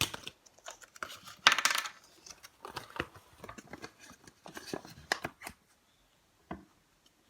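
Small plastic playset pieces being handled and fitted together: a string of light clicks and clatters, the loudest a short rattle about a second and a half in, thinning out after about five seconds.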